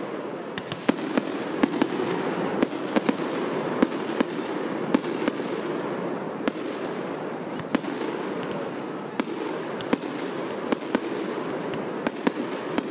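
Fireworks display: aerial shells bursting in irregular sharp bangs, about one or two a second, over a steady background noise.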